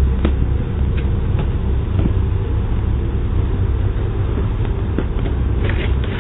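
Steady low rumble of outdoor background noise, heard through a video doorbell camera's microphone, with a few faint clicks scattered through it.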